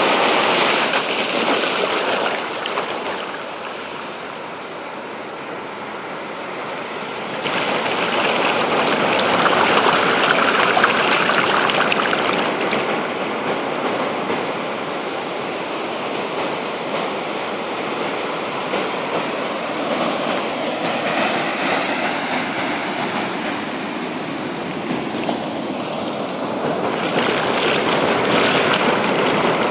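Ocean surf breaking and the wash running up over the sand close by, a continuous rush. It dips quieter for a few seconds, swells again about seven seconds in, and rises once more near the end.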